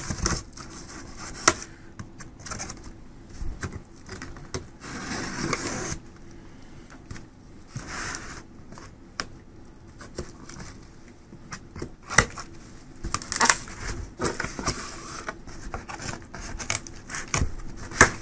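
A cardboard box being opened by hand: irregular scraping and rubbing of cardboard, with scattered clicks and knocks and a few longer stretches of scraping.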